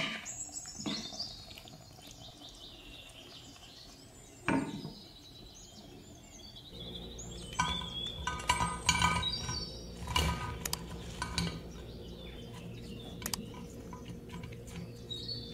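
A few knocks of a wooden spatula against a frying pan, then, from about eight seconds in, a run of clinks and knocks as fried potato cubes are tipped from a metal mesh strainer into a glass baking dish.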